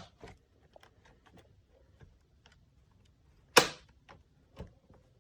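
Laptop's plastic bottom cover pressed down along its edges, its clips snapping into place: a sharp click at the start, a loud one about three and a half seconds in and a smaller one a second later, with faint ticks of plastic between.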